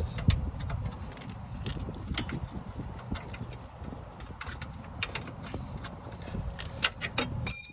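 Metal hand tools clicking and clinking against parts during alternator work, in irregular knocks that grow more frequent near the end and finish with a short metallic ring.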